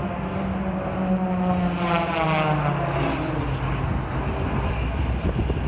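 A single-engine propeller aerobatic race plane flying past, its engine note falling in pitch as it goes by and loudest about two seconds in.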